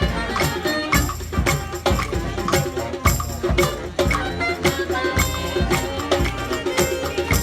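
Instrumental music with a steady beat and hand percussion.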